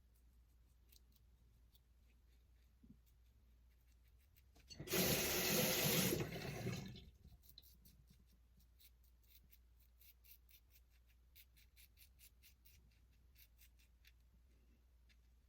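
Bathroom sink tap running for about two seconds, a little under a third of the way in, rinsing the razor mid-shave. Before and after it, faint quick scraping strokes of a Wolfman WR2 safety razor cutting stubble.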